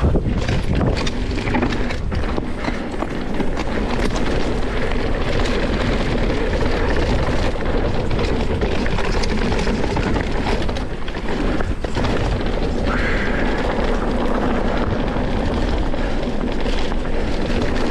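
Mountain bike riding down a dirt forest trail, heard from an on-bike camera: a steady rush of tyre and wind noise with frequent short knocks and rattles as the bike rolls over roots and bumps.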